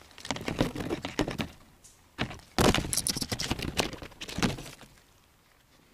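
Dry rustling and crackling close to the microphone in two bouts, the second one louder.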